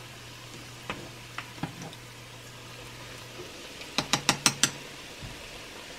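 Funnel cake batter frying in hot oil in a saucepan, a steady sizzle, while it is being flipped with a wooden chopstick and a wire spider strainer. A few light clicks of the utensils against the pan in the first two seconds, then a quick run of about five sharp taps about four seconds in.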